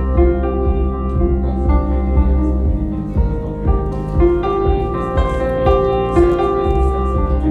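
Recorded music with piano and a strong, steady bass line, played through Avantgarde TRIO G3 horn loudspeakers driven by Air Tight tube amplification, heard in the room.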